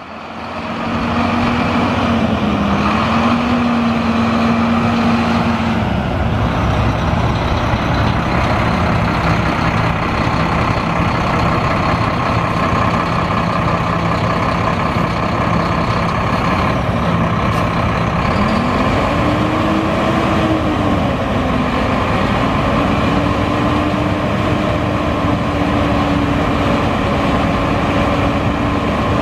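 2010 Mack Granite dump truck's MP7 10.8-litre inline-six turbo diesel running. Its speed drops a little about six seconds in, then rises about two-thirds of the way through, swings back once and holds slightly faster.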